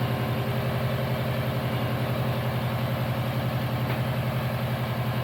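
Subaru Forester's flat-four boxer engine idling steadily. It is running again after a no-start fault was cured by fitting new terminals in a sensor connector.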